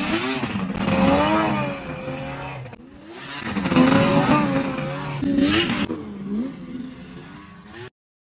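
Snowmobile engine revving up and down as the sled rides past, its pitch rising and falling. It breaks off briefly about three seconds in, revs again, and cuts off suddenly just before the end.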